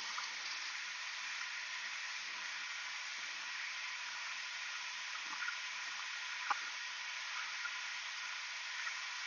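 Myford Super 7 lathe running while a twist drill in the tailstock chuck feeds into a part held in a collet: a steady hiss-like running noise with a faint hum, and a single small click about six and a half seconds in.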